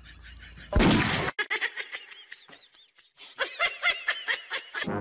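A single loud bang-like burst about a second in, then bursts of high-pitched laughter.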